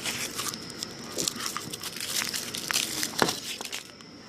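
Foil wrapper of a Wonder Ball chocolate being crinkled and peeled off, a busy run of irregular crinkles and crackles with one sharper crack about three seconds in.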